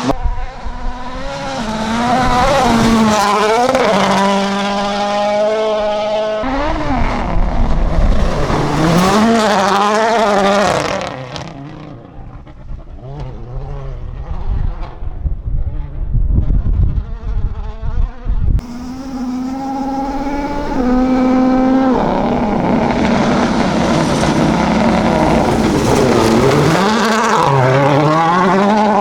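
Toyota Yaris WRC rally car's 1.6-litre turbocharged four-cylinder engine at full attack. The pitch climbs and falls again and again through quick gear changes. Midway it drops to a quieter, rumbling stretch before the revving picks up again.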